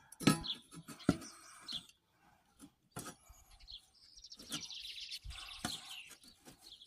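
Small birds chirping in short high notes, with a rapid twittering run in the second half, broken by several sharp knocks.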